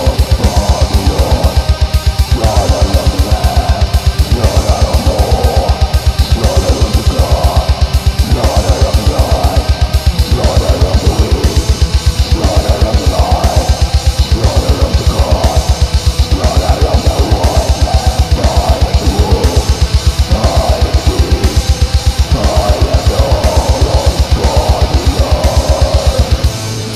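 Black metal band playing: distorted electric guitars and cymbals over a fast, evenly pulsing kick drum. The kick drum drops out near the end.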